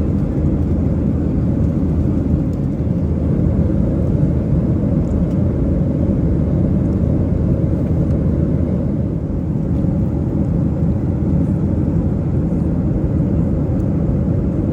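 Steady low rumble of a Boeing 737-800 in flight, heard from inside the main cabin: engine noise and rushing air, even and unbroken.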